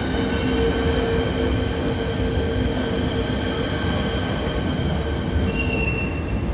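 A train moving over the rails with its wheels squealing: several steady ringing tones over a low rumble, changing near the end to a single higher squeal.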